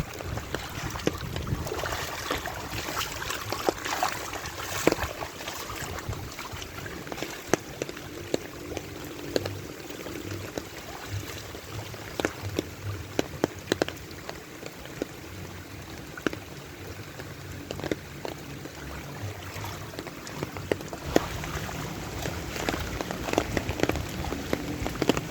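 Rain falling steadily, with many sharp single drops and drips standing out against an even hiss.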